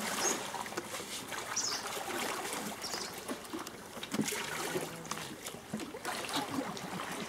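Water trickling and splashing, a steady running-water noise with small irregular splashes.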